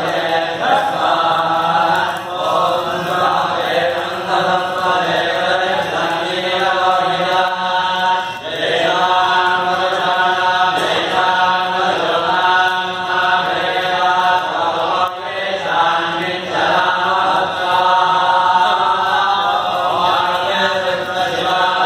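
Vedic mantras chanted by several priests together for a Rudra homa fire ritual, a continuous recitation held on a few steady notes.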